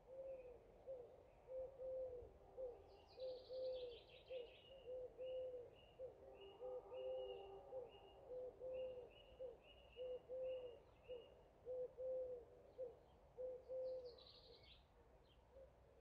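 Birds calling: a low hooting call repeated about once a second until near the end, over a higher bird giving a run of short chirps, about two a second, in the middle. Brief bursts of high twittering come about three seconds in and again near the end.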